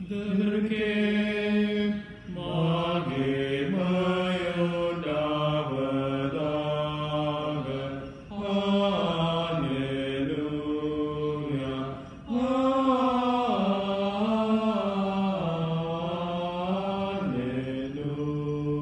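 Voices chanting a sung liturgical response, held notes moving in steps, in several phrases with short breathing breaks between them.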